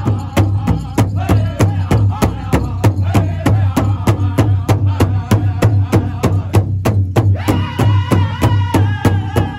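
Powwow drum group: several men beating one large hide-headed powwow drum together in an even beat of about three to four strokes a second while singing high, in unison. The singing breaks off for a moment about seven seconds in, then a new high phrase begins.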